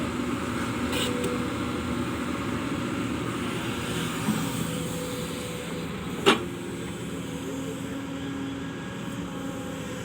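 Excavator's diesel engine running steadily at work, with a single sharp knock about six seconds in.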